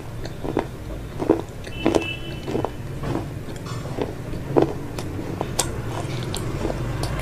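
Close-miked chewing of crispy fried chicken: irregular crisp crunches and wet mouth clicks, about one or two a second, over a low steady hum.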